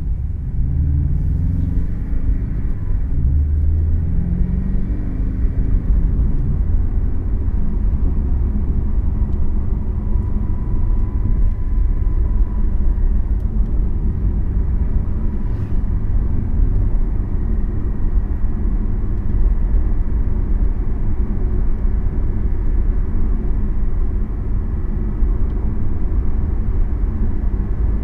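A Porsche sports car heard from inside the cabin while driving: the engine climbs in pitch in the first few seconds as it accelerates, then settles into a steady drone with road rumble.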